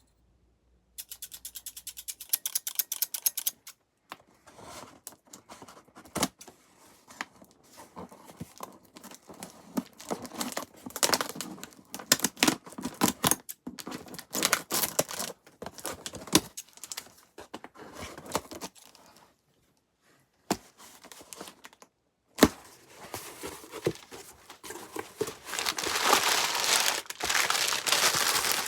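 A cardboard package being opened by hand: a quick run of ripping clicks as tape is torn off, then irregular tearing, scraping and crinkling of packaging, with a sharp knock about two-thirds through. The crinkling grows louder and denser near the end.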